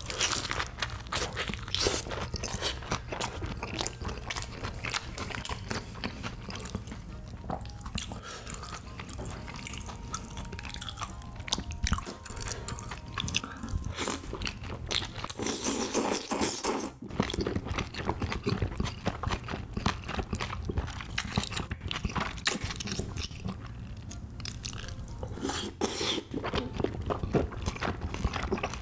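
Close-up eating sounds: crunchy bites and chewing of a fried battered piece, then wet slurping and chewing of tteokbokki rice cakes and noodles in sauce, with one loud slurp about halfway through.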